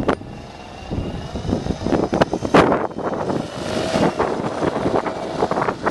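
Radio-controlled model helicopter flying, its rotor and motor making a steady whine, with gusts of wind on the microphone.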